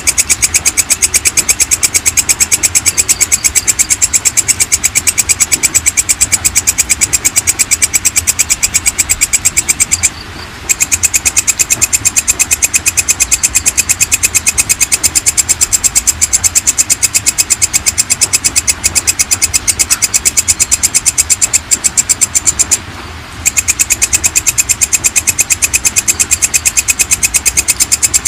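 Walang kecek (belalang kecek), a katydid, calling: a loud, continuous, high-pitched train of very rapid clicking pulses, with two short breaks, about 10 and 23 seconds in.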